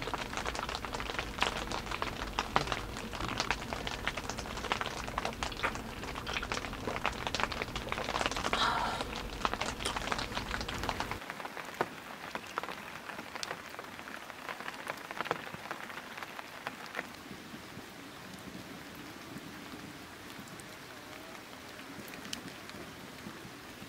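Rain falling on a one-touch tent, a dense patter of drops striking the fabric. About halfway through it turns lighter and quieter, with scattered single drops.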